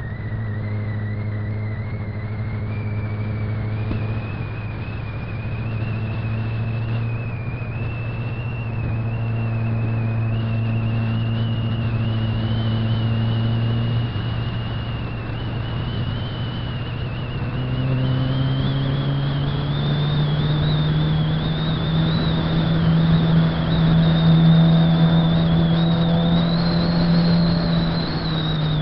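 Suzuki GSX-R600's inline-four engine running on the move, holding steady revs and then pulling higher about two-thirds of the way through before easing off near the end. Wind and road noise run underneath, along with a thin high whine that climbs slowly in pitch.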